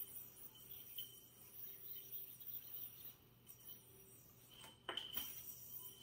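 Faint high whir of a spinning bi-metal yoyo (Offset Outlier 3, aluminium body with stainless steel rim) playing on its string. About five seconds in come a couple of sharp clicks with a brief metallic ring as the yoyo is caught on the string during a trick.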